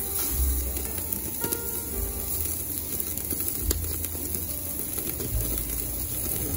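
Slices of beef kalbi sizzling on the grate of a gas-fired yakiniku table grill, a steady hiss, with music playing underneath.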